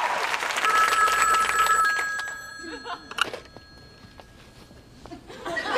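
Desk telephone bell ringing loudly for about two seconds, then dying away, with a sharp click about three seconds in.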